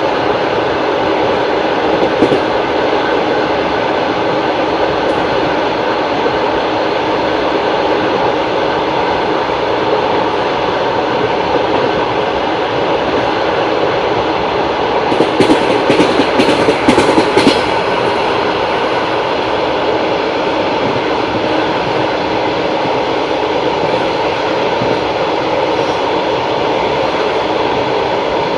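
Long-distance passenger train running on the rails with a steady rumble of wheels. A quick run of sharp clacks comes just past the middle as the wheels cross rail joints or points.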